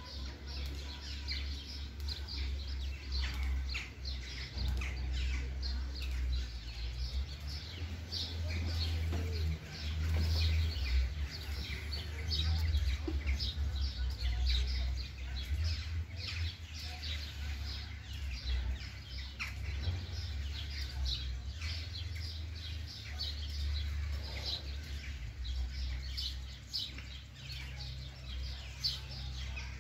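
Small birds chirping and calling with many short, high notes throughout, over a steady low rumble.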